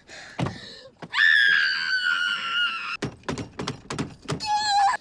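A woman's long, high-pitched scream that sinks slightly in pitch, then a quick run of knocks and thuds and a shorter, wavering high cry near the end, sounds of a physical scuffle.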